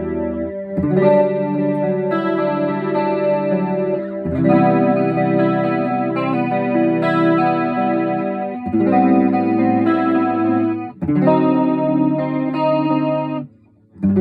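Electric guitar (PRS SE Custom 24) played through a BOSS DC-2 Dimension C chorus pedal on its third mode into a Vox AC30 amp: clean, ringing chords let to sustain and changed every few seconds, with a brief break just before the end.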